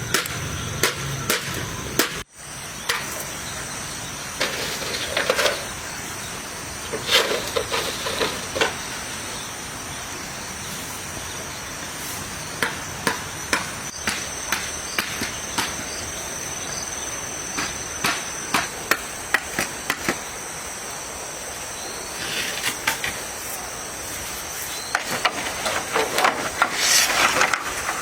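Irregular sharp knocks or taps, sometimes several a second and busiest near the end, over a steady high-pitched insect chirring.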